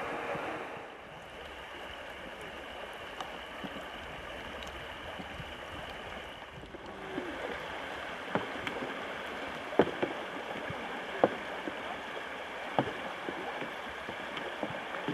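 River water rushing and sloshing around a paddled canoe. From about halfway through, paddle strokes come about every second and a half, each with a sharp knock.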